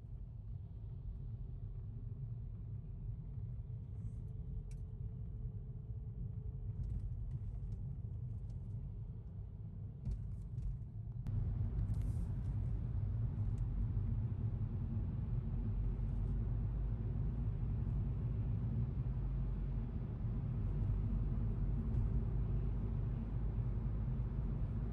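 Steady low road and engine rumble heard from inside a moving car's cabin. It steps up louder and fuller about halfway through, with the car then driving in a road tunnel.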